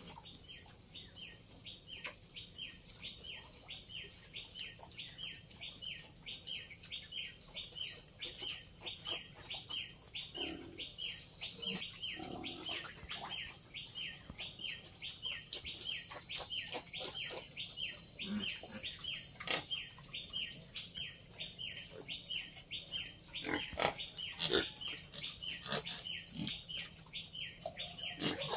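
Native pig weanlings grunting and giving short high calls now and then, over a steady, even chirping at about three a second throughout.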